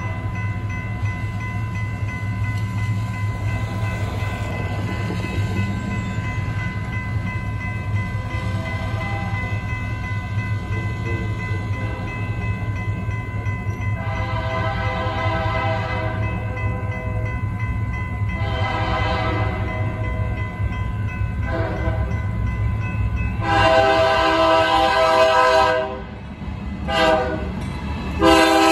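Air horn of a BNSF freight locomotive sounding a series of blasts in the long-long-short-long crossing pattern, then starting it again. The blasts grow louder as the train approaches, with the last long ones the loudest near the end. A steady low rumble runs underneath.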